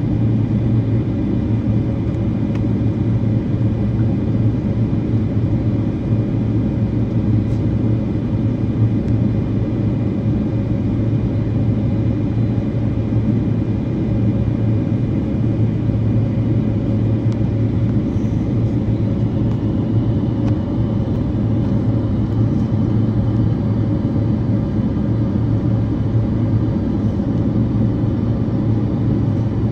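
Boeing 767-400 jet engines and airflow heard inside the passenger cabin as a loud, steady rumble with faint steady whining tones above it.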